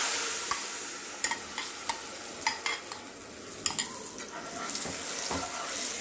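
Tamarind pulp hitting hot oil and cumin in an aluminium kadhai: a loud sizzle at first that settles into a steadier, quieter sizzle. A metal spatula clicks and scrapes against the pan several times as it is stirred.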